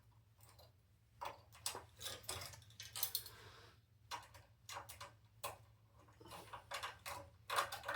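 Lock pick and tension wrench working in a filing cabinet's lock cylinder: faint, irregular metal clicks and short scrapes as the pick is worked against the pins.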